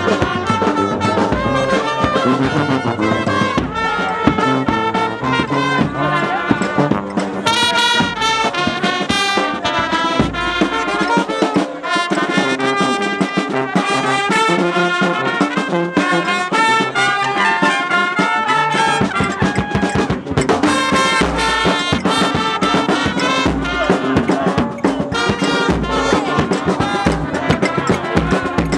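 Brass band music: trumpets and trombones playing a melody over low bass notes and a sharp percussive beat.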